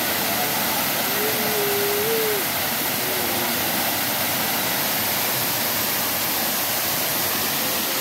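Waterfall pouring onto rocks and into a shallow pool: a dense, steady rush of falling water.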